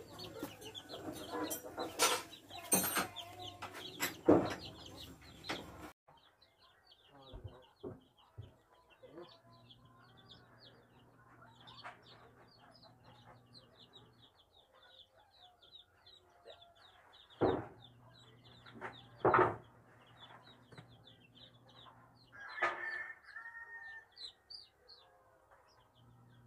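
A brood of young chicks peeping continuously, short high rapid peeps. A few louder chicken calls stand out near the middle and towards the end. The first several seconds are louder and busier, with clicks and knocks.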